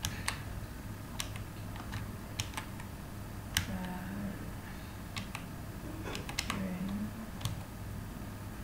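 Computer keyboard keys tapped slowly and unevenly, a few keystrokes at a time, over a low steady hum.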